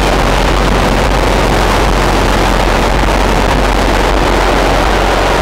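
Loud car engine running steadily, with a constant deep hum under a broad rushing noise.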